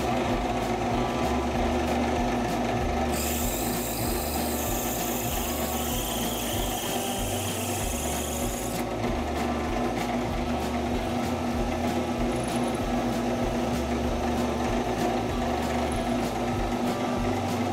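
Drill press running steadily while a 5/32-inch drill bit cuts through a model steam engine's connecting rod, the final size of a step-drilled hole. A higher hiss comes in about three seconds in and cuts off suddenly about nine seconds in.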